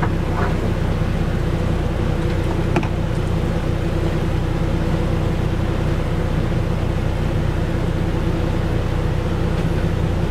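Machinery running steadily with a low, even hum, plus a couple of light clicks in the first few seconds.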